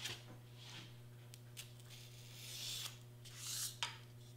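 Cut-out pieces of black card sliding and rubbing over a cutting mat as they are shifted into place, with two longer soft rubs in the second half and a small click near the end.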